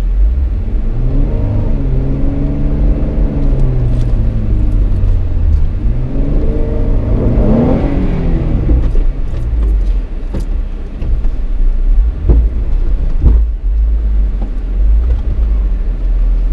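Off-road vehicle's engine revving up and down twice over a deep steady rumble. A couple of sharp knocks come about three-quarters of the way through.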